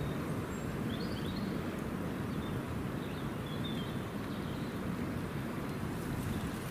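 Steady low outdoor rumble, with a few faint, high, short bird chirps scattered through it.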